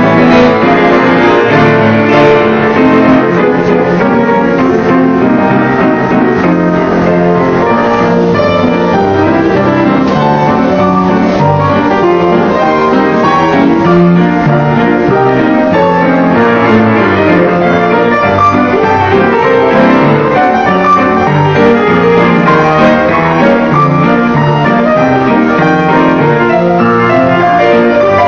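Ragtime piano duet played on an upright piano and a grand piano together: a steady stream of busy piano notes.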